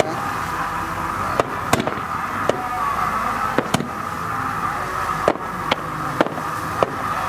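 Fireworks display: aerial shells bursting in sharp, irregularly spaced bangs, about ten of them, over a steady background din.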